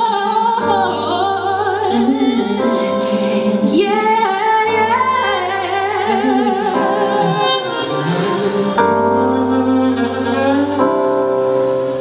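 A female jazz singer sings wordless lines that bend and waver with vibrato over accompaniment that holds steady sustained chords and a low bass note changing every few seconds.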